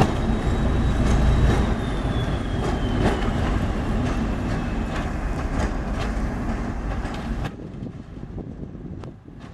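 Class 73 electro-diesel locomotives running on their English Electric diesel engines, working hard as they pull away, with the wheels clicking over rail joints and points and a high whine that falls slowly in pitch. About three-quarters of the way through the sound drops abruptly to a quieter, thinner engine sound with some wind noise.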